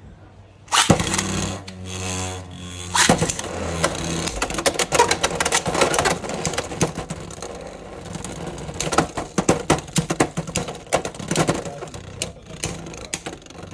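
Two Beyblade X spinning tops launched into a plastic stadium about a second in, then spinning and colliding, with many sharp metallic clicks and clattering knocks.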